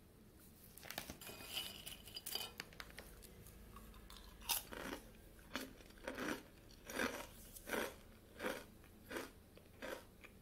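Close-up crunching and chewing of crisp animal-shaped lemon biscuits: a flurry of crunchy bites in the first few seconds, then steady chewing at about one chew every three-quarters of a second.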